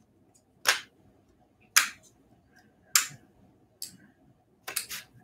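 Sharp, dry clicks as an opened 1954 wax pack and its brittle old gum pieces are handled on a marble tabletop: single clicks about once a second, then a quick run of three near the end.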